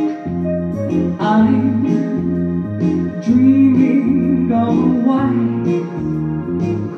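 A woman singing into a microphone over a music backing track with guitar-like chords, her voice coming in about a second in.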